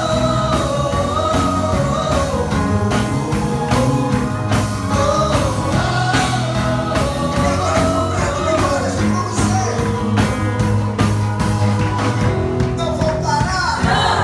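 Rock-style song with a sung lead vocal over a steady drum beat and bass.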